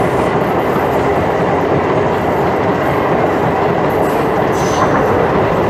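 Passenger train coaches running past at speed: a loud, steady noise of wheels on the track.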